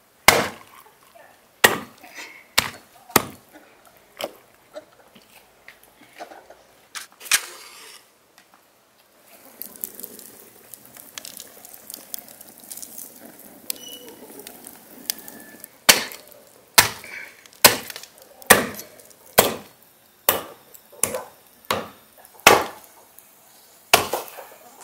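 A knife chopping raw goose pieces on a wooden chopping block, with sharp, irregular strikes. Partway through, a wood fire crackles steadily for several seconds, and then the chopping resumes at about one stroke a second.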